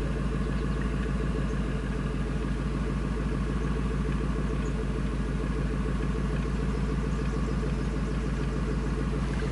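1999 Ford F250's 5.4-litre V8 idling steadily and evenly, with no misfires. The surging, rough idle is cured after the sticking EGR valve, its pintle floating loose, was replaced.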